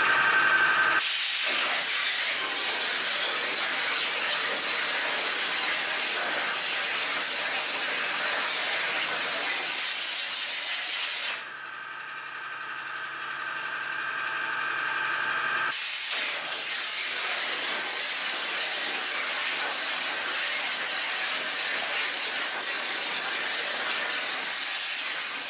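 Flow CNC water jet cutting an aluminium sheet: the high-pressure jet gives a loud, steady hiss. About eleven seconds in the hiss drops away for about four seconds, leaving a quieter machine hum with a steady tone, then swells back up.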